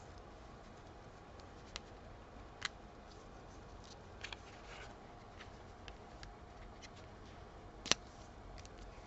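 Faint handling of card stock, foam tape and ribbon on a craft table: a few light ticks and rustles, with one sharper click about eight seconds in as a paper panel is pressed into place.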